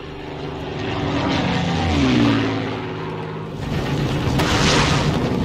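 Piston-engined propeller aircraft droning, the engine pitch falling about two seconds in as a plane passes. From a little past halfway a louder rushing noise joins the drone.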